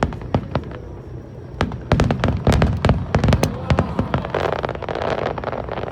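Aerial fireworks shells bursting: scattered sharp bangs, then a dense volley about two seconds in, followed by a crackling shower of many small pops.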